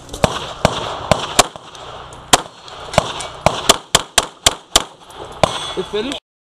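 Springfield XD(M) pistol firing a string of about a dozen shots, in singles and quick pairs, with a pause of about a second near the middle. The sound cuts off suddenly near the end.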